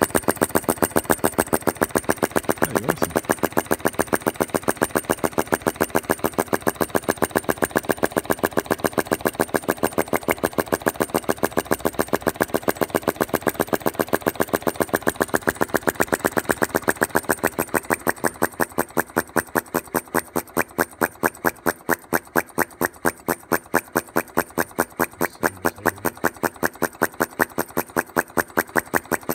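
Philip Duclos 'Fire Eater' flame-sucker (vacuum) model engine running steadily, giving an even train of sharp clicks, a few a second, one per working cycle. The hiss between the clicks drops about two thirds of the way in while the rhythm holds.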